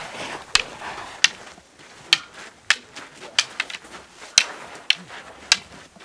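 Long wooden staffs clacking together in Canarian stick fighting (juego del palo): about ten sharp wooden knocks at an uneven pace, some in quick succession.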